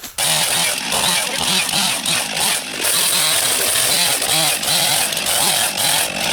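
Small gasoline engine of a Wood-Mizer bandsaw sawmill running at high speed, starting abruptly a moment in and holding steady with a few brief dips.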